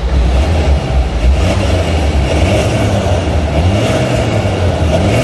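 The 2.0-litre four-cylinder turbodiesel of a BMW 320d xDrive E90 running through a Supersport sport exhaust, a deep steady rumble with the revs rising and falling a little.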